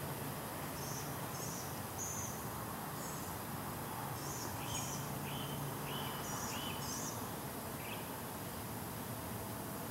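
Short, high bird chirps, a few near the start and then a run of about five lower chirps in the middle, over a steady outdoor background hiss.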